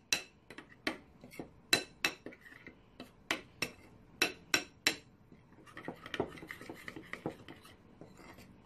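A spoon clinking sharply against a bowl again and again, two or three times a second, as a thick sauce is stirred, with a stretch of softer scraping a little past the middle.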